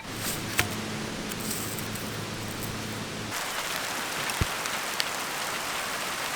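Steady hiss of rain falling, growing brighter about halfway in, with a few faint drop clicks. A low steady hum runs under it in the first half and stops abruptly.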